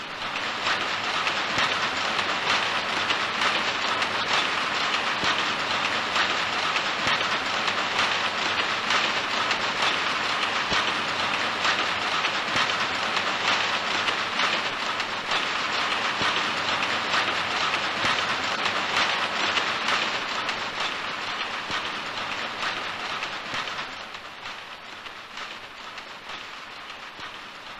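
Power looms running in a weaving shed: a loud, dense, rapid clatter. Near the end it drops in level and sounds more distant.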